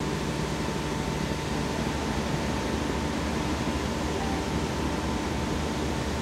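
Steady mechanical hum over a constant noise, with a thin high whine held throughout.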